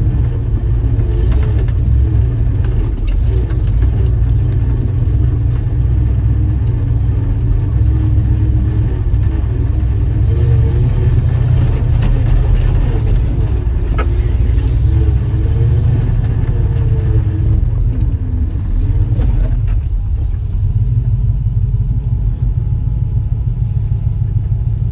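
Jeep engine running as it drives a rough off-road trail: a heavy low rumble with the engine note rising and falling, and a few knocks along the way. About twenty seconds in, the engine settles to a lower, steadier note.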